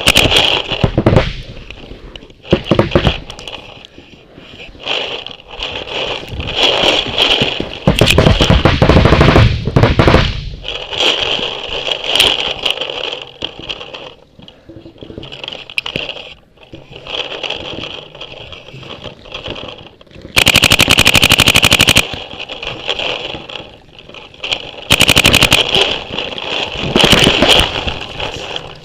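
Paintball marker firing rapid strings of shots, a few short volleys between stretches of scuffling movement, with the longest bursts about twenty and twenty-five seconds in.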